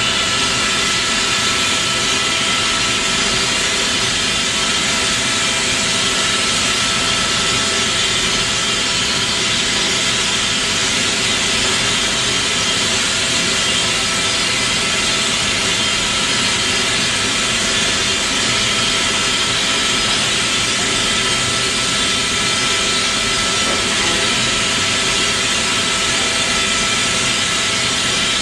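Hovair air-beam lifting system running under load: a steady, loud rush of compressed air escaping from beneath the inflated beams, with a few steady tones mixed into the hiss.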